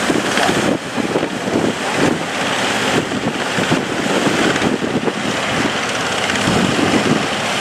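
Boat running through rough sea, with wind buffeting the microphone over the engine and rushing water.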